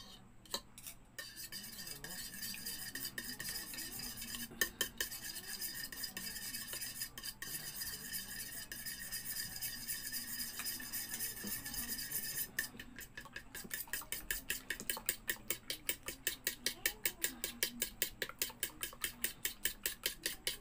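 A plastic spoon beats a runny egg mixture in a bowl. For the first dozen seconds it makes a fast, continuous scraping and clatter, which then breaks off into distinct, regular strokes at about four a second.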